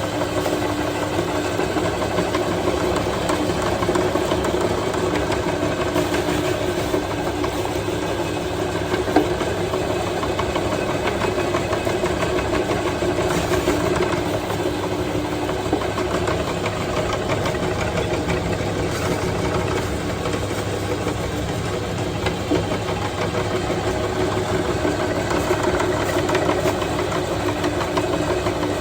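Electric meat grinder motor running steadily, with a dense crackle as it grinds honey rice.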